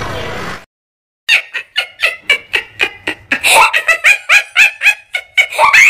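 A comedy meme sound effect: a fast chain of short, high-pitched cries, about four a second, starting after a brief silence. It comes in on the cut from the anime scene to the ugly-drawing joke.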